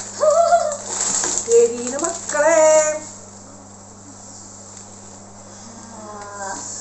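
A woman's wordless vocal sounds, short exclamations with gliding pitch, over the crinkle of a foil snack packet being torn open. Then a quieter stretch with a steady low electrical hum, and her voice again near the end.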